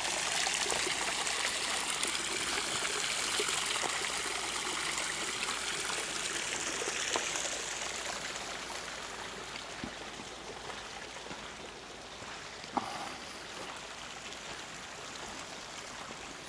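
Hot spring water trickling and splashing over rocks into a steaming soak pool, a steady sound that fades gradually after the first several seconds. A single short knock about thirteen seconds in.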